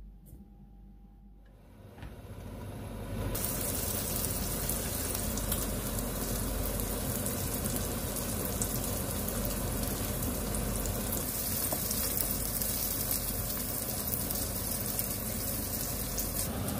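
Spam slices and eggs sizzling in hot oil in two frying pans. The sizzle comes in at full strength about three seconds in, after a quiet start, and then holds steady.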